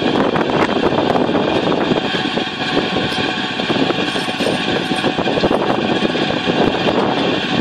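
Broch's Pro Vac engine-driven vacuum collector running steadily, its engine and suction fan giving a loud, even rushing hum with a faint whine on top.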